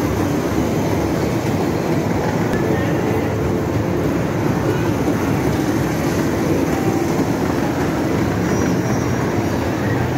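Kiddie ride train rolling around its circular track: a steady, even rumble.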